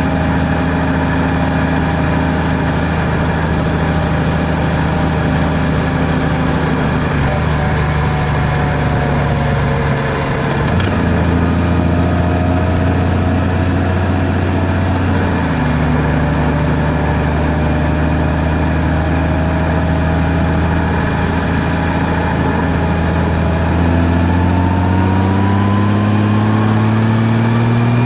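Vehicle engine running steadily on the road, its pitch shifting about ten seconds in and again around fifteen seconds, then rising steadily near the end as it speeds up.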